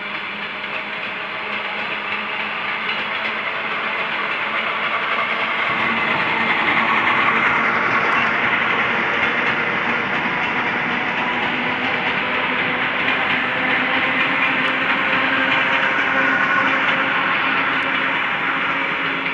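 Electric multiple-unit commuter train running past on the next track: a continuous rumble and clatter of wheels on rails. It builds over the first several seconds, stays loud, and eases slightly near the end.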